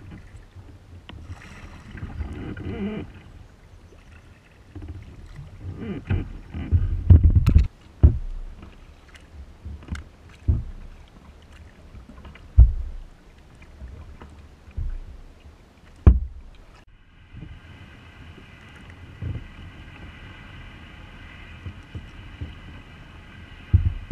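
Kayak paddling on a lake: the splash and low thump of paddle strokes every one to two seconds. A steady high hum sets in about two-thirds of the way through.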